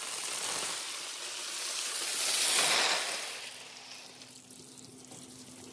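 Water and a mass of glass marbles pouring off the end of a rain-gutter marble run into a water-filled trough. The splashing rush swells to its loudest about halfway through, then dies away.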